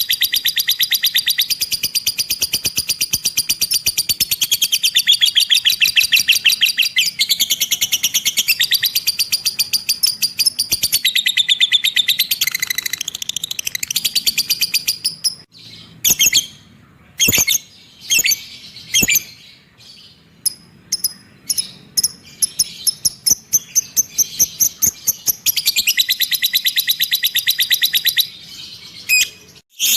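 Lovebird 'ngekek' chattering: long, very fast high trills of repeated notes. Between about 15 and 25 seconds in, these break into short separate chirps with pauses, and another long trill follows near the end.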